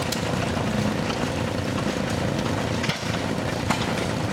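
Several small antique engines running together, a fast, steady chugging with a few sharp clicks.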